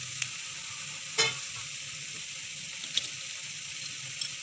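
Oil sizzling in a kadai as fried chicken pieces and vegetables are stirred into spiced fried onions, a steady hiss with a sharp knock about a second in and a few fainter knocks later.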